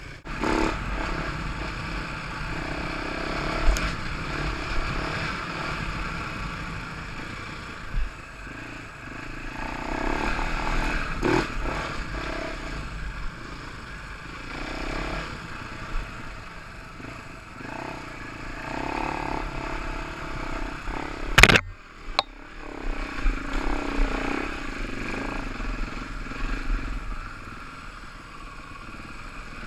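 Enduro dirt-bike engine revving up and falling back over and over as it is ridden over rough ground, with clattering and scraping from the bike and trail. A sharp loud knock comes about two-thirds of the way through.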